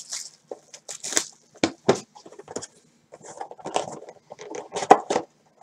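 Cardboard hobby box being handled and opened by hand: an irregular run of scrapes, rustles and taps, with the sharpest tap near the end.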